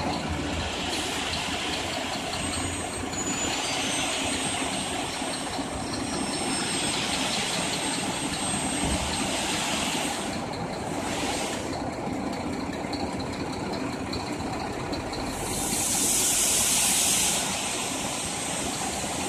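Scania tipper truck's diesel engine idling while its raised tipper trailer body discharges aggregate, with a hiss lasting about two seconds about three-quarters of the way through.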